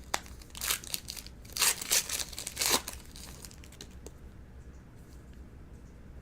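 A foil baseball card pack wrapper being torn open and crinkled, in several short bursts over the first three seconds, then fainter handling.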